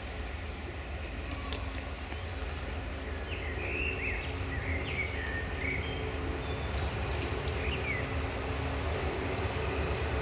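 Diesel train engine running with a steady low rumble that slowly grows louder. Several short bird chirps come in the middle.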